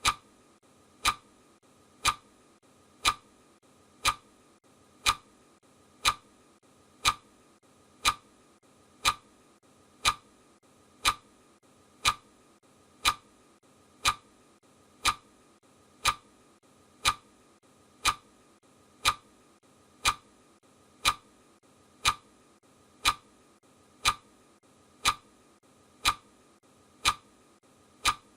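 Clock ticking sound effect of a countdown timer: one sharp tick every second, evenly spaced.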